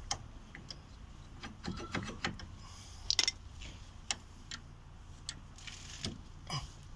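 Irregular metallic clicks and ticks of an Allen key being turned by hand in a car's front brake caliper guide bolt, undoing the bolt.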